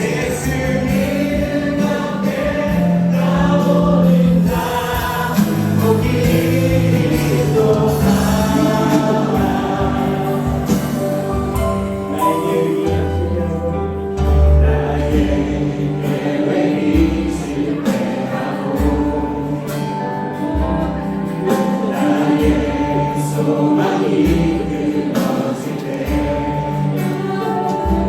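A choir singing a Christian gospel song with instrumental accompaniment; a steady bass beat comes in about halfway through.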